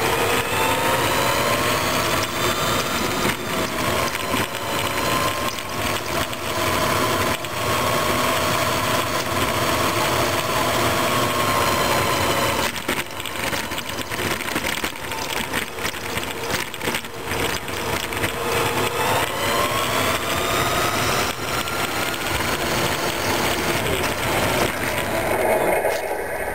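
Radio-controlled model truck running, a whine that rises and falls in pitch as it speeds up and slows, with frequent rattles and knocks as it runs over rough asphalt.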